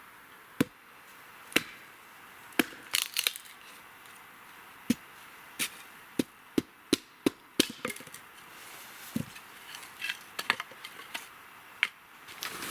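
Hults Bruk Salen hatchet chopping firewood: sharp single chops into wood, about one a second at first, then a quicker run of about three a second, with lighter knocks near the end.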